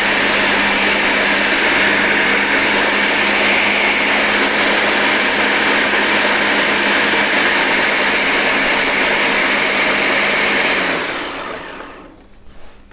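Ninja Smart Screen blender motor running on its low setting with the food processor bowl fitted, mixing egg yolks and mustard: a steady whirring with a low hum, which winds down and stops about eleven seconds in. A single sharp click follows right at the end.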